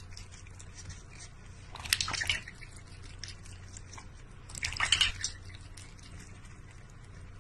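Water splashing and dripping in a large stainless steel bowl as a cat paws at it, with two louder splashes about two and five seconds in.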